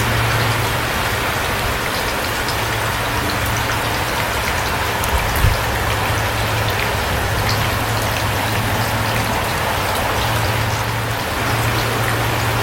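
Steady rain falling, with individual drops ticking through an even hiss.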